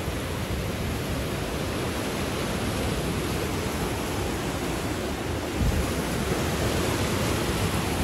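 Steady rush of a nearby waterfall, an even roar of falling water, with a brief low rumble on the microphone about five and a half seconds in.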